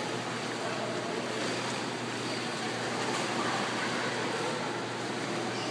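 Steady background noise of an indoor swimming pool hall: an even wash of air handling and pool water.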